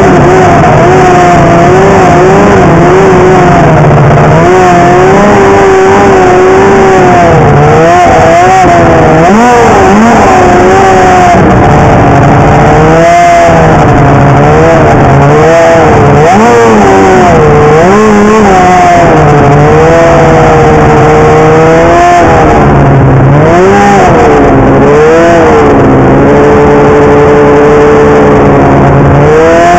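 Polaris 800 two-stroke snowmobile engine under load, revving up and down over and over as the throttle is worked, its pitch rising and falling every second or two.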